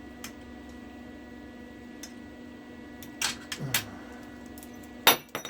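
A welded steel bolt-and-plate piece dropped to test the weld: a few light metal clinks a little past the middle, then a loud metallic clang with a short ring near the end. A steady low hum runs underneath.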